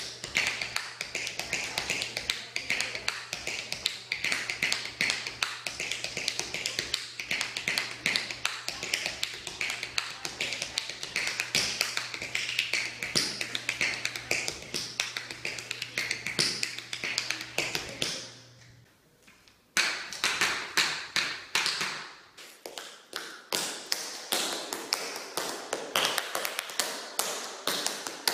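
Tap shoes striking a hard studio floor in fast, rhythmic tap-dance steps, dense runs of sharp clicks. They stop for about a second around two-thirds of the way through, then start again.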